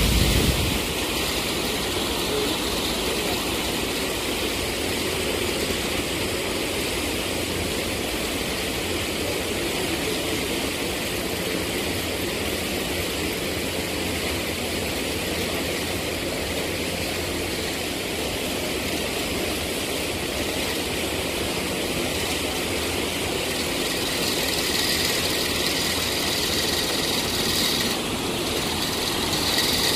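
Steady, even rumble and hiss of distant engine noise.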